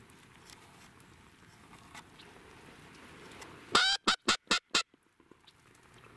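Duck quacking close by: one longer quack, then four short, quick quacks, a little under four seconds in, over faint background noise.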